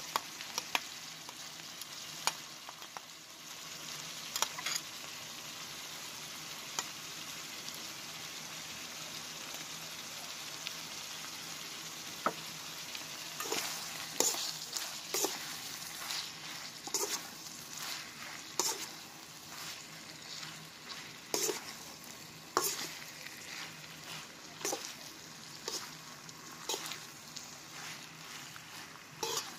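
Ground meat, hotdog slices and ham sizzling in a nonstick frying pan with a steady hiss. From about halfway through, a spatula stirs the mix and knocks and scrapes against the pan about once a second.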